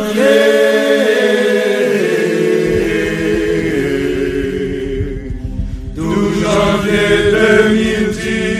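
Sung chant, voices holding long notes in two phrases, with a short break about five seconds in.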